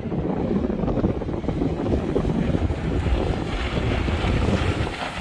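Wind buffeting the microphone over open water, with the wash of water and a boat's motor running underneath.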